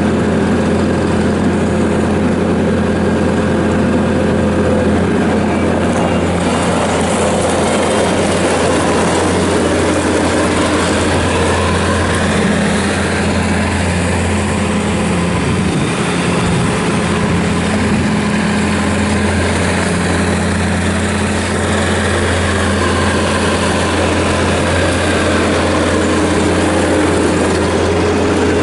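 Bobcat S590 skid steer's diesel engine running steadily, its note shifting slightly partway through.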